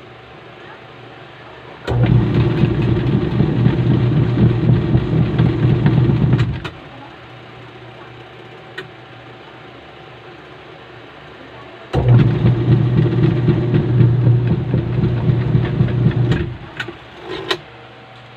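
Washing machine running noisily in two bursts of about four and a half seconds each, with a loud rattling hum, stopping and going quiet in between. The owner puts the noise down to a broken gearbox.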